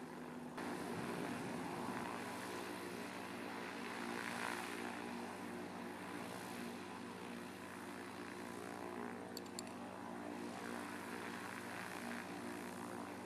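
Skyranger Swift ultralight's propeller engine idling steadily on the ground, an even multi-tone hum with no change in revs.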